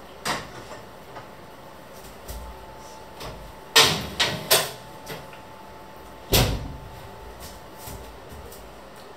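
Sharp knocks and clunks in a kitchen: one just after the start, a quick run of three about four seconds in, and a last loud one about two seconds after that.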